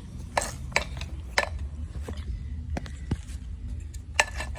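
Metal parts and tools clinking and knocking as a car's electric cooling fan motor is handled and taken apart, about six separate sharp knocks over a low steady hum.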